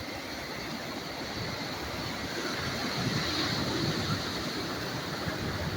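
Surf washing on the shore, with wind buffeting the microphone; the wash swells a little midway.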